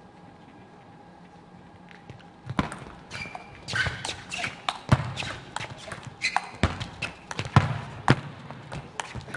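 Table tennis rally. The ball clicks sharply off the rackets and the table in a quick, irregular run, starting about two and a half seconds in.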